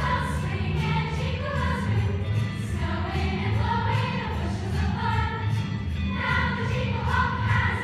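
A large school choir singing a song, with long held notes that move between pitches.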